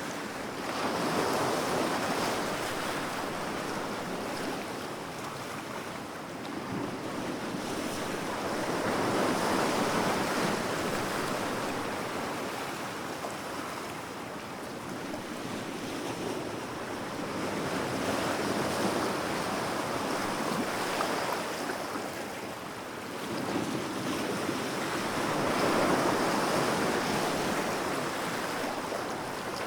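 Large ocean waves breaking on the shore in a continuous wash, swelling into a louder surge every several seconds and easing back between breakers.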